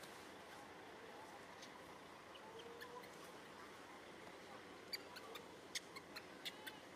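Faint outdoor background, close to silence, with a string of short, high chirps and clicks starting about five seconds in.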